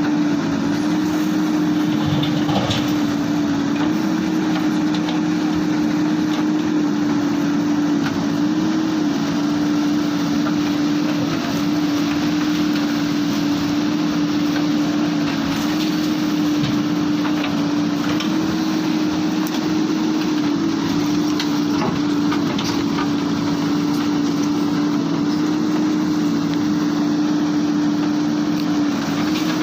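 Heavy diesel engine running at a steady speed, a constant drone that shifts only slightly in pitch now and then.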